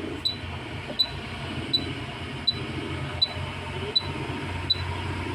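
Hot air rework station blowing with a steady low hum, heating flux on a phone motherboard shield. A short high electronic beep repeats about every three-quarters of a second.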